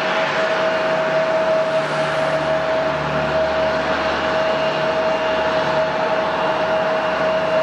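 Jet airliner engines running steadily: a broad, even rush with one constant whine held at the same pitch throughout.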